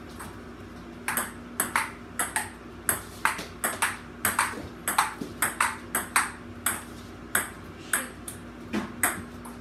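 Table tennis rally: a celluloid ball clicking back and forth off paddles and the table, a quick, uneven string of some twenty sharp hits that starts about a second in and stops shortly before the end.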